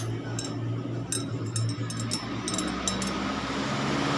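Light clinks with a slight ring, scattered in small clusters, over a steady low hum, with a rush of noise building near the end.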